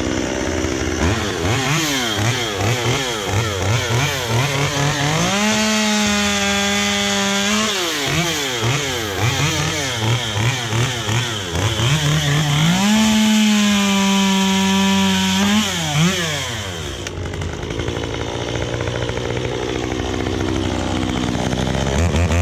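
Stihl MS193T top-handle chainsaw's small two-stroke engine blipped up and down rapidly, held at full throttle twice for a few seconds each, then dropping back to idle. It screams at high revs, which the owner thinks may come from a muffler mod.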